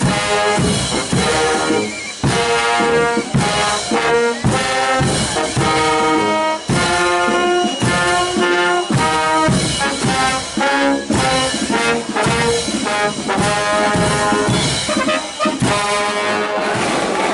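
Brass band with trumpets and a tuba playing a tune to a steady drum beat.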